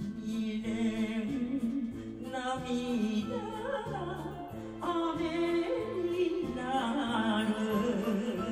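Woman singing an enka song into a microphone, her voice wavering with vibrato on held notes, over a karaoke backing track with a steady bass beat.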